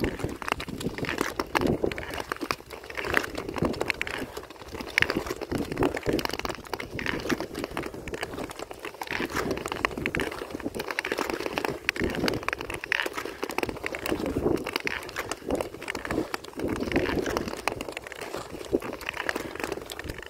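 Ice-skate blades carving and gliding on clear black lake ice: a scraping hiss that swells with each push, about one stroke a second, with scattered sharp clicks.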